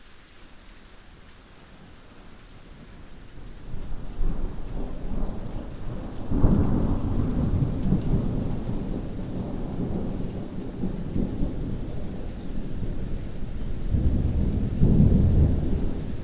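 Heavy rain falling steadily while thunder rolls in a few seconds in, a long low rumble that swells twice, loudest about six seconds in and again near the end.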